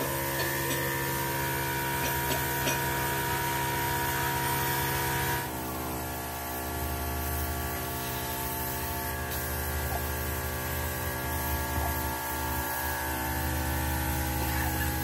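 Workshop machinery running with a steady, many-toned hum. The sound changes abruptly about five and a half seconds in, and a few light ticks sound early on.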